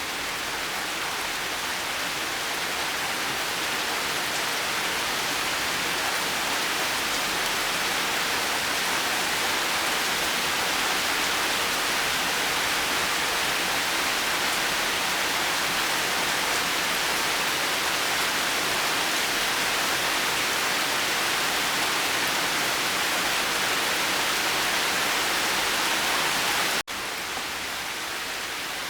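Steady rain falling, an even hiss with no single drops or thunder standing out. About 27 s in it cuts out for an instant and resumes a little quieter, like a splice in a looped recording.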